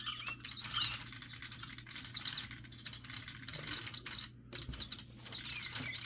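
Recorded bird song played through a toy bird's small speaker: quick, high chirping phrases repeated again and again, with a few light clicks.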